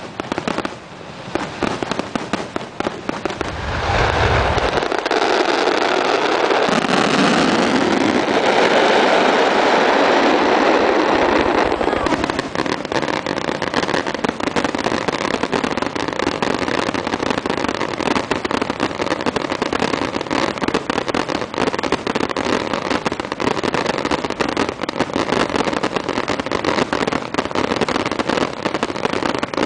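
Aerial fireworks display: a rapid, continuous barrage of shell bursts and crackling stars. A heavy low boom comes about four seconds in, and the barrage is loudest and densest from then until about twelve seconds in.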